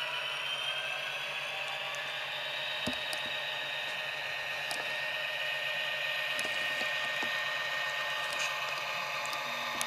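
Tsunami sound decoder in an HO-scale Proto 2000 GP60 model playing its EMD 710 diesel engine sound through the model's small speaker, running steadily, with a high turbocharger-like whine that rises slightly in pitch over the first couple of seconds.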